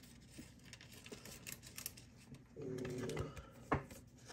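Faint handling of trading cards and a plastic card sleeve: soft rustles and light clicks, with one sharper click about three and a half seconds in.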